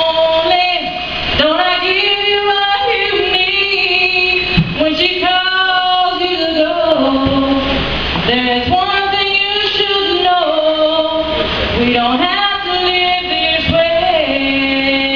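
A woman singing solo and unaccompanied, with no instruments. She holds long notes and slides between pitches, phrase after phrase.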